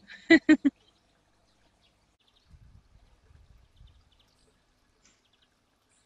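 Three short, loud voice syllables at the very start, then near-quiet with faint chirps of small garden birds and a soft low rumble around the middle.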